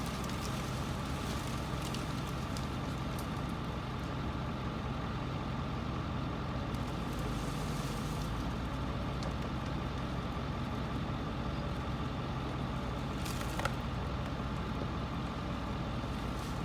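An engine running steadily at a constant pitch, with one sharp click about three-quarters of the way through.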